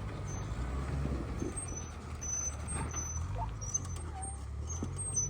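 Off-road truck engine running steadily at low revs, with a scatter of short, high-pitched squeaks over it.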